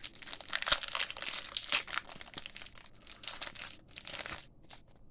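Booster-pack wrapper being handled and crinkled open, a dense, crackly rustle that stops about four and a half seconds in, followed by a couple of small clicks.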